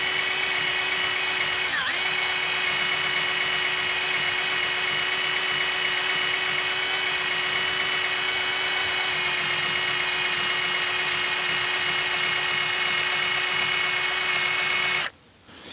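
Cordless drill spinning a polishing wheel against the metal nail-head beading of a leather chair, a steady motor whine that cuts off suddenly near the end.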